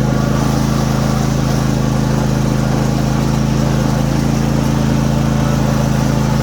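Simplicity ZT1500 zero-turn mower's 23 hp Briggs & Stratton V-twin engine running steadily with an even, unchanging note.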